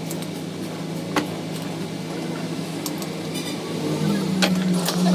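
Engine running steadily with a low hum, with a few sharp metallic clinks. About four seconds in the hum grows louder and slightly higher.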